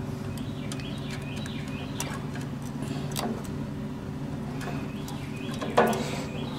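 Small metal clicks and taps as a lawn-tractor carburetor is handled and worked by hand, with one louder knock near the end, over a steady low hum.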